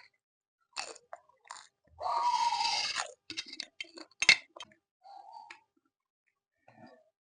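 A person eating instant noodles with vegetables and egg close to the microphone: wet chewing and mouth clicks, with one loud slurp lasting about a second, about two seconds in.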